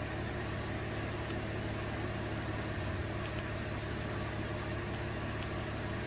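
The Chevrolet Colorado's 3.6-litre V6 idling steadily, a constant low hum with no change in speed.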